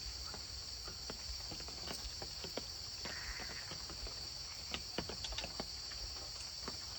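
Crickets chirring steadily at night, a continuous high-pitched trill. Scattered light clicks and taps come through it, most of them about five seconds in.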